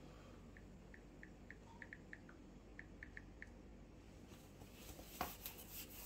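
Faint room tone with about a dozen quick, light ticks in the first half, the key clicks of a smartphone keyboard as a password is typed. Rustling handling noise and a single knock near the end.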